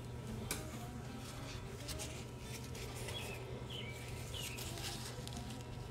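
Faint bird chirps, several short calls spread through a few seconds, over a low steady hum.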